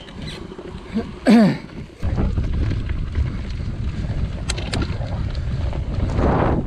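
Mountain bike riding over a grass course: a steady rumble of wind on the microphone and knobbly tyres rolling on grass sets in about two seconds in. Just before it, a brief, loud pitched sound rises and falls once.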